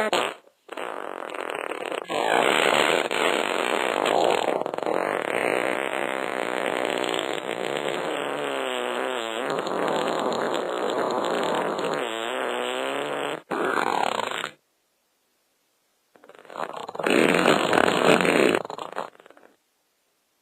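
Fart sounds: one long fart of about twelve seconds, wavering in pitch in places, then a short one and, after a pause, another of about three seconds.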